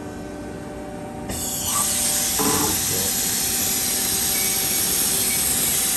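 CNC lathe with a loud, steady hiss that starts suddenly about a second in and keeps on, plus a short clatter about two and a half seconds in, as the tool-eye probe arm is brought down.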